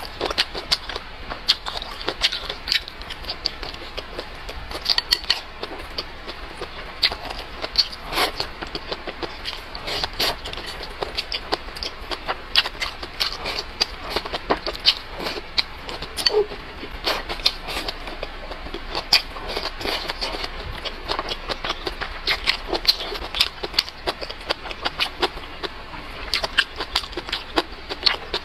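Close-miked eating sounds: chewing and wet lip-smacking of leafy greens and meat, a dense run of sharp little clicks several times a second.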